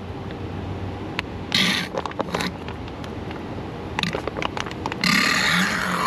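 Plastic pouch of 75W-140 gear oil being squeezed empty through its nozzle, with two crinkling hisses of plastic, a short one about a second and a half in and a longer one near the end, and a few small clicks between.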